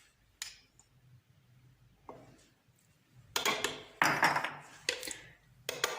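Kitchen utensils clattering against a cooking pot as spices are added: a light click, then a run of louder clinks and scrapes in the last few seconds.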